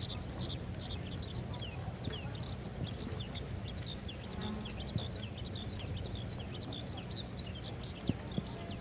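Many small birds chirping continuously in rapid, overlapping calls, over a steady low rumble of distant jet engines from a Boeing 737-800 taxiing at idle. A couple of faint clicks come near the end.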